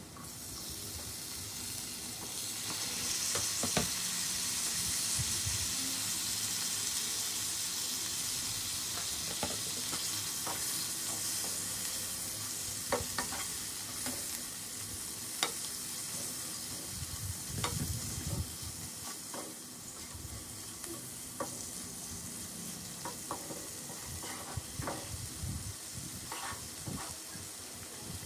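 Onion-tomato masala sizzling in oil in a nonstick frying pan, a steady hiss. A spatula stirs it, with short scrapes and taps against the pan throughout.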